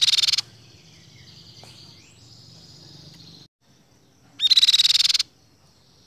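Crescent-chested babbler singing: a loud, fast rattling trill right at the start and another about four and a half seconds in, with fainter whistled notes between.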